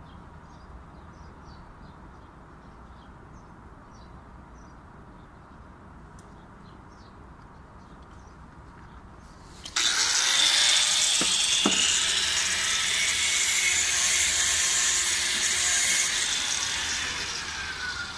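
Exothermic (thermite) welding charge in a graphite mould, joining copper conductors: it catches suddenly about ten seconds in and burns with a loud rushing hiss and a couple of sharp cracks for about six seconds, then dies away near the end. Before it, quiet outdoor air with faint bird chirps.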